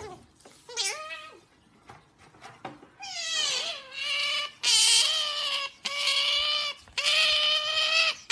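Asian small-clawed otter calling: two short squeaks near the start, then from about three seconds in a run of five loud, high-pitched calls, each held for most of a second. These are begging calls for food.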